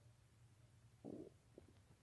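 A human stomach gurgling from an upset stomach after too much cheesy food: one short gurgle about a second in, then two faint pops.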